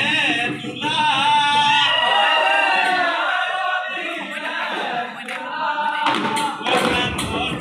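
A group of male voices singing a folk song together, live, with a few drum beats near the end.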